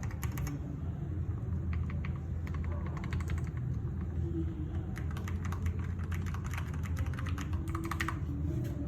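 Typing on a Ganss H98T mechanical keyboard with Gateron Pro Yellow linear switches: runs of rapid keystrokes, the longest in the second half, over a steady low hum.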